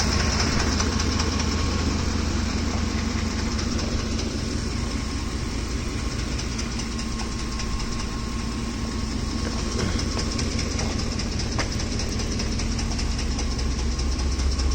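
Ford F-150's 5.4-liter 3V Triton V8 running hot at a steady speed, with a fast ticking noise from the top of the engine, which the owner suspects is a camshaft or timing chain problem.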